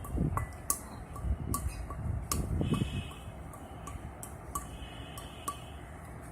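Regular mechanical ticking, about two and a half sharp ticks a second, over low bumps and handling noise.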